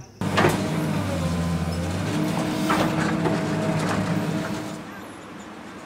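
Crawler excavator's engine and hydraulics running under load: a steady hum with a couple of sharp metal clanks. It eases off about five seconds in.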